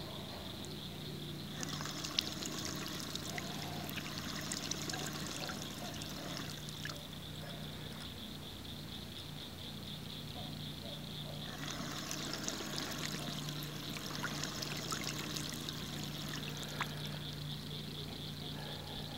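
Tornado Drake motorized mallard decoy's spinning tail paddle churning and splashing the water in two runs of about five seconds each, starting about a second and a half in and again about ten seconds later: its 5-second on/off timer switching the paddle on and off.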